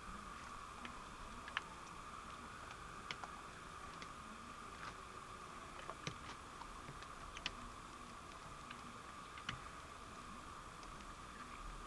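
Faint, irregular wet clicks and squelches of thick mud as hands rub and smooth it over soaked clothing, over a steady faint hiss.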